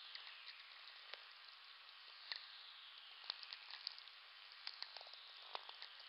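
VLF natural radio: a faint steady hiss crackling with sharp sferic clicks from distant lightning, with faint whistlers gliding down in pitch, one at the start and another from about three seconds in, part of a whistler echo train.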